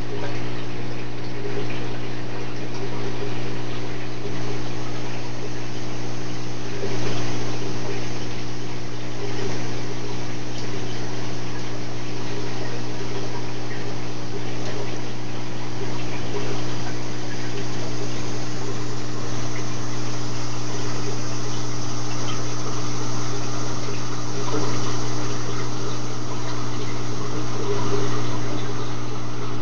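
Reef aquarium's circulation running: a steady low pump hum under a continuous wash of moving, splashing water.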